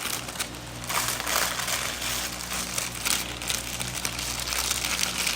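Close-miked crisp crinkling and crackling of food being handled and eaten, over a steady low hum.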